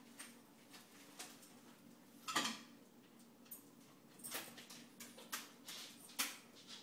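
A basset hound pawing and nosing at a granite kitchen counter: scattered short scratchy noises and soft knocks, the loudest a bit over two seconds in and several more in the second half.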